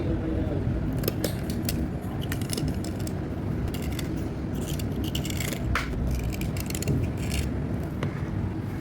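Slate pencils being handled and scraped, with irregular sharp clicks and scratchy rasps over a steady low rumble.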